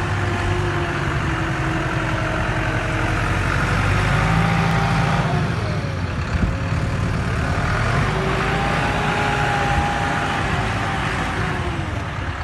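Diesel engines of a farm tractor and a Volvo lorry running hard together, the revs rising and falling several times, as the tractor tries to pull the lorry out of deep mud.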